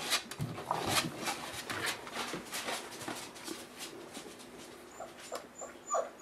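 Boerboel puppies whimpering and yipping among scattered clicks and knocks, with a few short high squeaks near the end.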